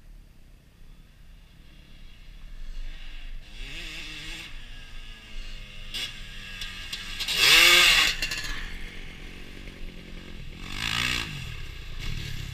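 Dirt bike engines revving as riders pass, over a low steady engine hum. The loudest pass comes about halfway through, with a quick rise and fall in pitch, and another bike goes by near the end.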